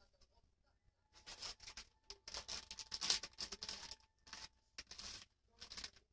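Plastic wet-wipes pack and disposable diaper crinkling and rustling in irregular bursts as wipes are pulled out during a diaper change.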